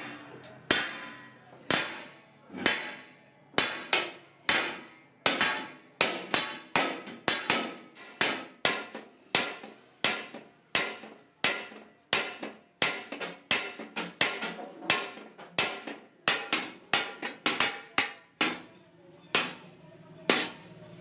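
Small hand hammer striking the outside of a large metal degh (cauldron) resting on a stake, a repeated sharp metallic clank with a short ring after each blow. The strokes come about once a second at first, then quicken to about two a second.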